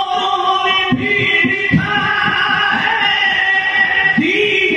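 Men's voices chanting an unaccompanied Urdu devotional verse (a manqabat in praise of Ala Hazrat) together in long held notes.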